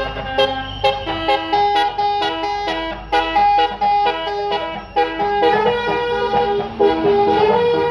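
A bus's 'telolet basuri' musical air horn playing a quick tune of separate stepped notes, with a bus engine rumbling underneath.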